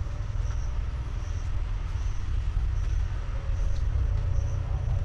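Low, flickering rumble of wind buffeting the microphone, with a faint high chirp from an insect repeating about every three-quarters of a second.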